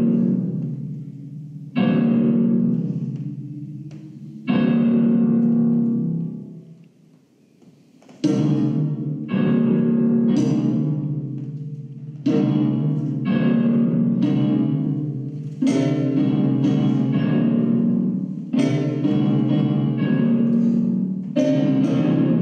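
Instrumental music of loud piano chords. Three chords are struck a couple of seconds apart and left to ring and fade; after a short lull the chords come about once a second.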